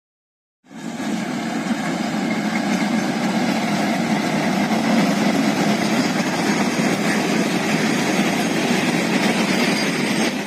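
Indian Railways diesel locomotive running steadily, a dense engine noise that starts abruptly under a second in and stops abruptly near the end.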